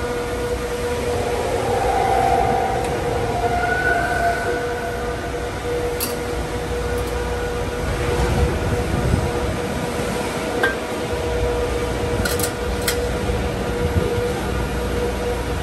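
Servo-driven CNC press brake running with a steady tonal hum and whine, with a few short sharp clicks of the sheet metal against the tooling and back gauge as it is bent.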